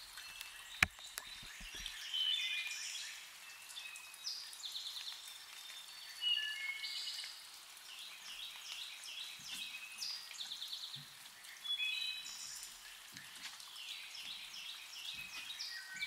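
Several songbirds singing at once: overlapping chirps, trills and short whistles. A single sharp click about a second in, and a few faint low knocks later on.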